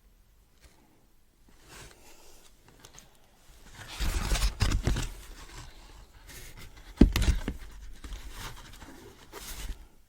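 Box contents being handled: irregular rustling and scraping of paper and packaging, with a sharp knock about seven seconds in.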